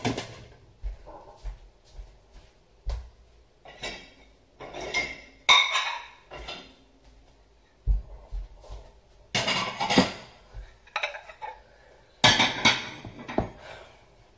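Dishes and metal cutlery clinking and clattering as they are unloaded from a dishwasher and put away, in repeated bursts every second or two.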